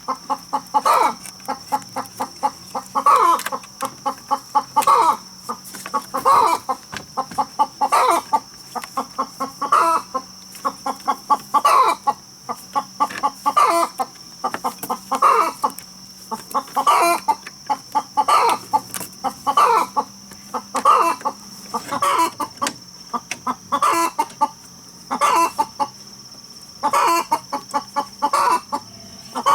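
Chickens clucking, short calls coming about once a second, over a steady high-pitched whine.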